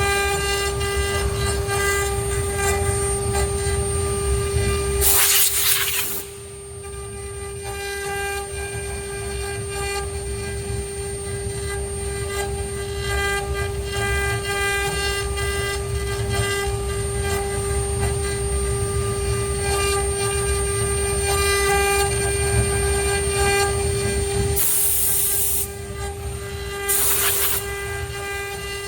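CNC router running: a steady high spindle whine over a low machine rumble, broken by brief bursts of hiss about five seconds in and twice near the end.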